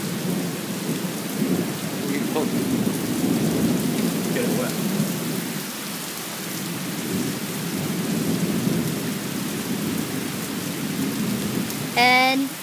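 Heavy rain pouring steadily, with a low rolling rumble of thunder swelling and easing under it. A brief voice calls out near the end.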